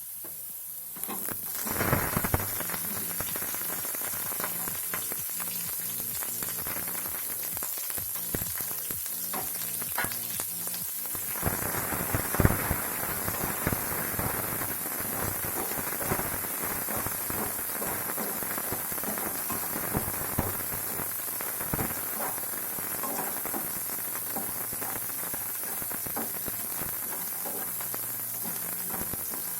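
Chopped onion sizzling and crackling in hot oil in a pan, stirred with a spatula. The sizzle starts up about a second and a half in and grows louder again a little before halfway.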